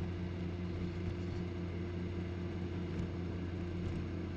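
Honda Gold Wing GL1800's flat-six engine at a steady cruise: an even, low hum with wind and road noise.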